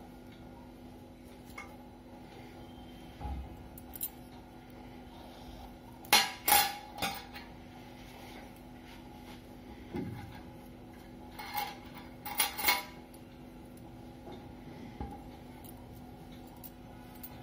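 A bunch of metal keys on a key ring clinking against each other and on a glass tabletop, in two short clusters of jingles about six and twelve seconds in, with a few soft knocks between.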